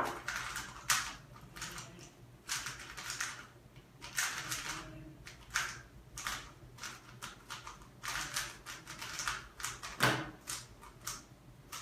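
Rubik's cube being turned fast in a speedsolve: bursts of rapid plastic clicking and clacking, each run of turns lasting about a second, with short pauses between them.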